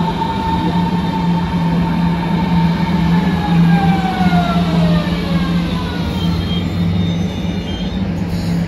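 Berlin S-Bahn class 481 electric multiple unit running past and moving away, with a steady low hum and whining tones that fall in pitch around the middle.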